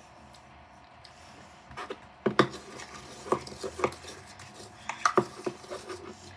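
Handling noise: a run of sharp clicks and knocks from small hard objects being handled on a tabletop, starting about two seconds in, with a few loud knocks in the middle.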